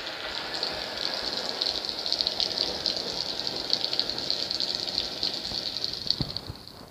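Sabermach Dark Storm lightsaber's sound board playing its blade hum: a steady high hiss with a fast crackling flutter. It fades out near the end as the blade is switched off.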